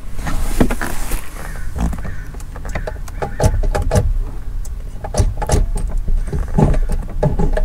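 Short-throw gear shifter and shift-box linkage of a VW Mk4 GTI being worked by hand: a run of metal clicks and clunks as the lever is moved between gates.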